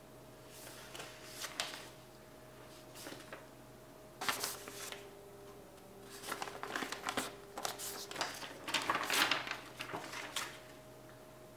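Sheets of paper rustling and crinkling as they are handled and leafed through, in short irregular bursts, with the loudest stretch a little past the middle.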